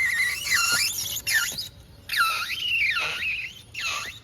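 Scooter's rear foot brake squealing against the wet wheel: about four separate high squeals, each swooping down in pitch and back up, like an elk call.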